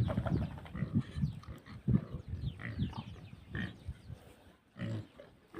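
Domestic pigs grunting: a string of short, irregular grunts. There is a brief lull about four seconds in, then one more grunt.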